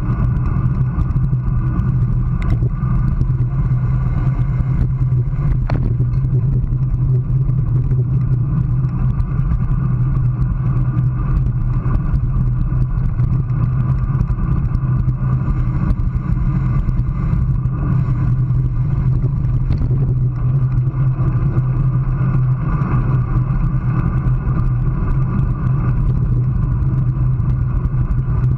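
Steady rush of wind and road rumble picked up by a GoPro mounted on a road bike's handlebars, riding at about 25 mph. A constant low drone runs under the noise, with a few faint clicks.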